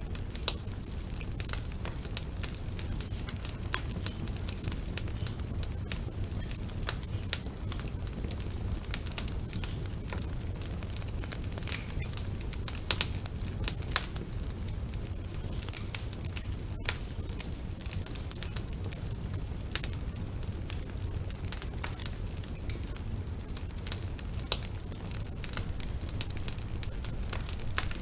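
Wood fire burning in a fireplace: a steady low rumble of flames with frequent irregular crackles and a few louder pops.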